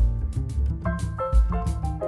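Music: held chords changing every half second or so over a steady beat and a strong bass line.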